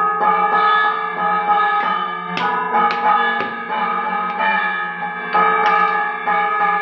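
Instrumental music with ringing, bell-like tones: sustained pitched notes that shift every half second or so, with several sharp struck notes.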